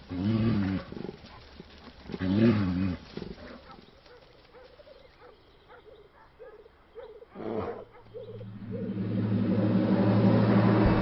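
A bear growling: two loud, wavering growls, one at the start and one about two seconds in, followed by fainter short repeated calls. Music swells in near the end.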